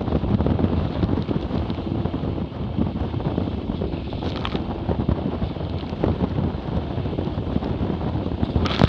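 Wind buffeting the microphone over water rushing past the hulls of a Hobie 20 catamaran sailing fast, with two brief sharper hits, about four seconds in and near the end.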